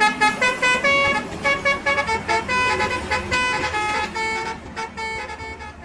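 Bus telolet horn, a multi-tone musical air horn, playing a quick tune of short notes that step up and down in pitch.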